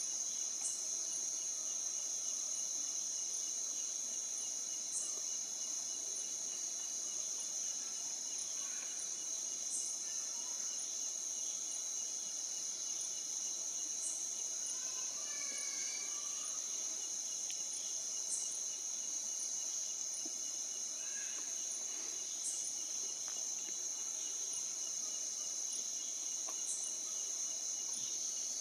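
Insects droning steadily at a high pitch, with a short high tick repeating about every four seconds and a few brief whistled notes around the middle.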